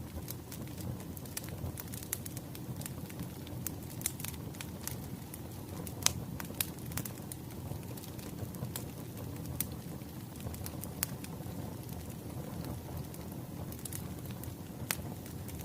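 Wood fire crackling: a steady low rumble of burning logs with irregular sharp pops and snaps, one louder pop about six seconds in.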